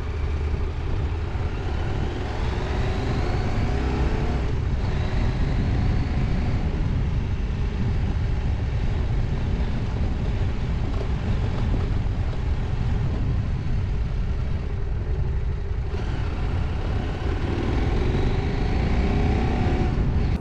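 Husqvarna Norden 901's parallel-twin engine pulling away and accelerating, its pitch rising through the gears in two runs, about three seconds in and again near the end. A steady rumble of wind on the microphone runs underneath.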